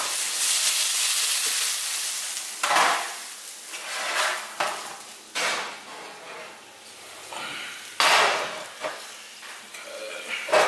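A sizzling hiss fades over the first couple of seconds, then a series of separate clanks and knocks as a metal baking pan and a cast iron skillet are handled and set down on a gas stovetop.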